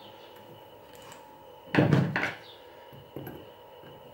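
Knocks and clunks of workbench handling: a loud knock just under two seconds in with a second right after it, then a lighter knock near the end, as a screwdriver is picked up off the wooden bench and the 3D-printed plastic sanding bow is handled.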